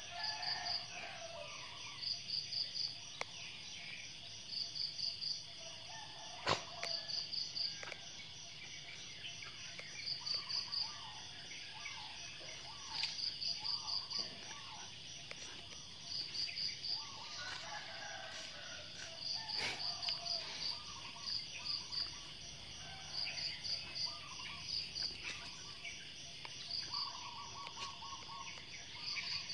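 Insect chirping in short trains of quick, high pulses that recur every second or two, with birds chirping in the background and a few sharp clicks, the loudest about six seconds in.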